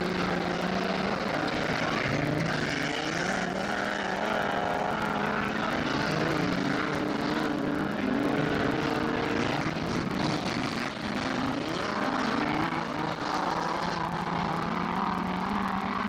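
Engines of several autocross racing cars running hard together on a dirt track: a continuous engine drone whose pitch shifts up and down as the cars accelerate and lift.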